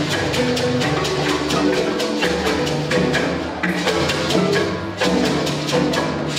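Marimba ensemble playing a busy interlocking pattern of wooden-key mallet strikes over deep bass-marimba notes, with drum accompaniment.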